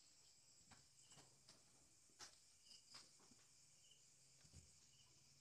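Near silence: a faint steady trilling of night insects such as crickets, with short high chirps every second or so and a few soft taps.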